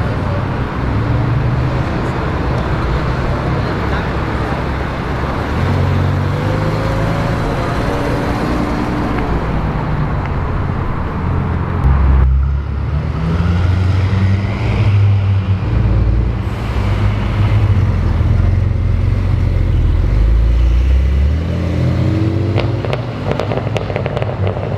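Car engines on a busy street: a Bentley Continental GT pulling away amid traffic, then, after a cut about halfway, a Porsche 911 with a strong low engine rumble that rises in pitch near the end as it accelerates away.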